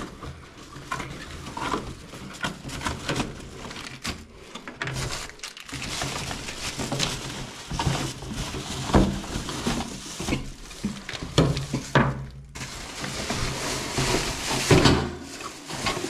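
Pedestal fan being unboxed: cardboard box flaps and plastic wrapping rustling, with scattered knocks and clatters as the plastic fan parts are handled and set on a tabletop.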